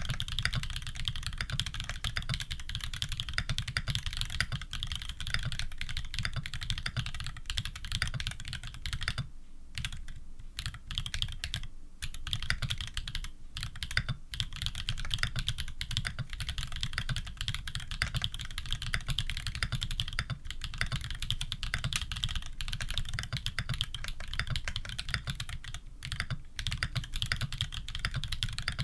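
Fast, continuous typing on a custom mechanical keyboard with tactile Holy Panda switches, a brass plate and PBT keycaps, keys clacking in rapid succession with a couple of brief pauses near the middle.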